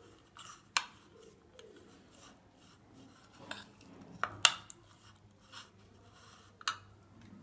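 Metal spoon stirring chopped raw vegetables and spices in a plastic bowl: soft scraping and rustling, with a few sharp clicks of the spoon against the bowl, the loudest about four and a half seconds in.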